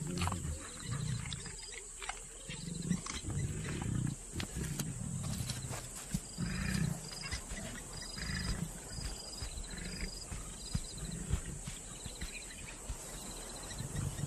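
African lion giving a series of low grunting calls, roughly one a second.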